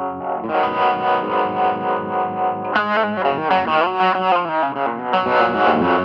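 PRS Hollowbody II electric guitar played through an Ibanez Tube Screamer overdrive and the Strymon Flint's harmonic tremolo into a Benson amp: overdriven chords ring out with a steady pulsing throb from the tremolo. About three seconds in comes a short lick with bent notes, and near the end a new chord is struck and left to ring.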